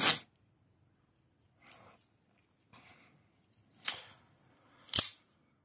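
A few short clicks from a Maxace Neptune out-the-front automatic knife being handled: faint ones at first, a louder one about four seconds in, and the sharpest click about a second later.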